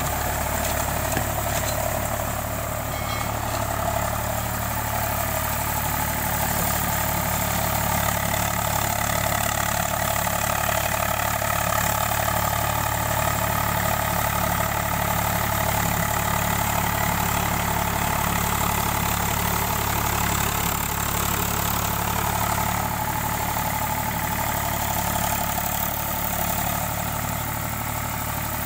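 Eicher 485 tractor's diesel engine running steadily under load, pulling a rotavator that churns wet paddy mud.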